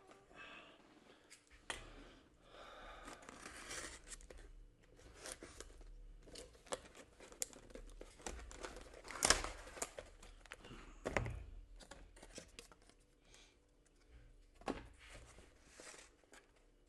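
Cardboard and plastic packaging being torn open and handled, with irregular rustling, crinkling and sharp snaps, loudest about nine and eleven seconds in.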